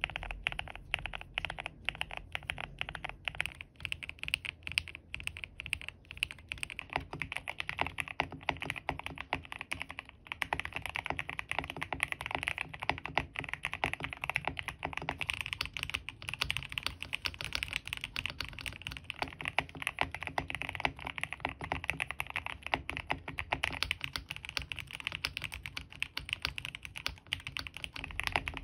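Custom GMK67 mechanical keyboard with Gateron Silver Pro V3 linear switches, a polycarbonate plate, a tape mod, PBT keycaps and Permatex-lubed stabilizers, typed on quickly and continuously: a dense, unbroken run of keystroke clacks.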